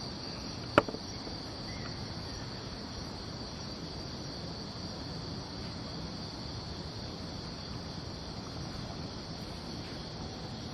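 Night-time insect chorus, a steady high-pitched trill of crickets over faint background hiss, with one sharp click just under a second in.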